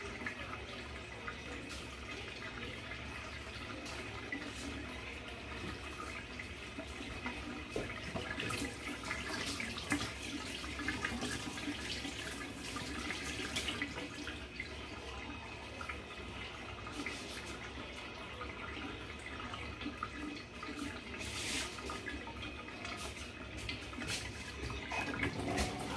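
Kitchen tap running into a stainless-steel sink while raw ribs are rinsed by hand, with scattered light knocks and splashes.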